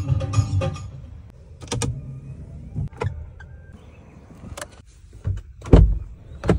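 Clicks and knocks of a Mahindra Thar's cabin controls being worked by hand: infotainment buttons, the dashboard stalk and the door's power-window switch. A heavy low thump near the end is the loudest sound.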